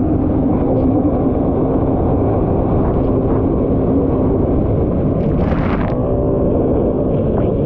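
Kawasaki SX-R 1500 stand-up jet ski's four-cylinder four-stroke engine running hard at racing speed, mixed with a dense rush of water and wind. A brief hissing burst comes about five and a half seconds in.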